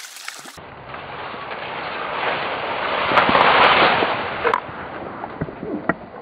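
Water splashing hard as a hooked tench thrashes at the surface. The splashing swells to its loudest around the middle and then eases, with a few sharp slaps near the end.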